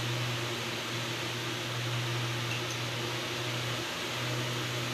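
Steady low hum over an even hiss of room noise.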